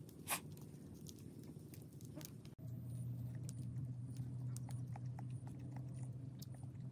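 Baked egg being peeled by hand, a sharp crack and small crackles of shell, then close-up chewing with small mouth clicks as it is eaten. A steady low hum comes in about two and a half seconds in.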